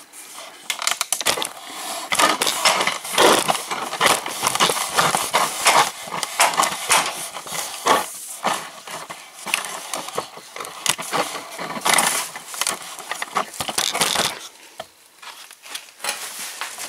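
Rough handling noise close to the microphone: a rapid, irregular run of clicks, knocks and crinkly rustles that thins out about two seconds before the end.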